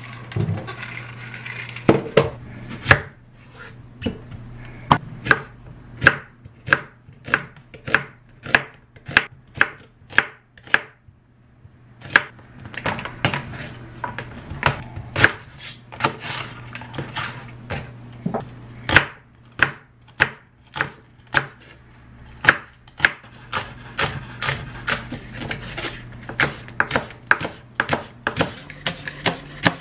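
Kitchen knife chopping vegetables on a wooden cutting board in a steady run of sharp strikes, about two a second, with a short pause about a third of the way through; green onion is being chopped near the end.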